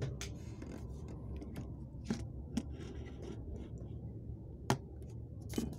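Handling noise from a Samsung SGH-S500 mobile phone: about five scattered clicks, the sharpest a little before the end, with scratchy rubbing between them.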